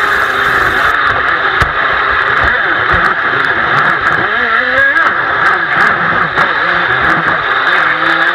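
Rushing river water around an RC jet boat's hull, picked up by the boat's onboard camera: a loud, steady, thin rush, with scattered small knocks.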